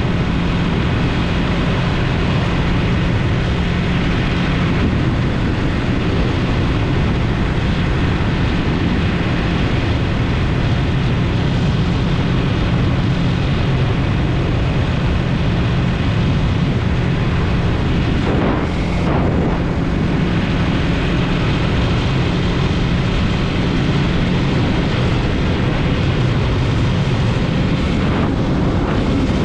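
Yamaha MT-03 motorcycle engine running steadily under way, mixed with wind and tyre noise from the trail. The engine note drops briefly once, about two-thirds of the way through.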